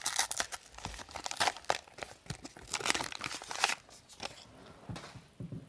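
Foil wrapper of a hockey card pack crinkling and tearing as it is ripped open by hand. The dense crackling dies down to a faint rustle after about four seconds.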